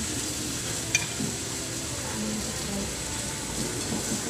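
Meat juices and sauce sizzling on a hot sizzling plate, a steady hiss, with one sharp clink of a metal spoon against the plate about a second in.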